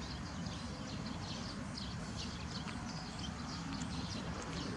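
Outdoor ambience: small birds chirping in many short, high notes over a steady low rumble.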